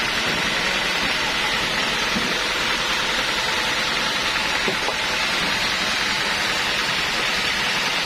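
Band sawmill running steadily: a constant machine whir with no breaks or changes.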